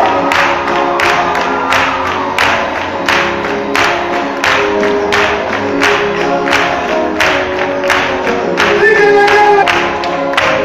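Gospel choir singing with a steady beat, about two beats a second.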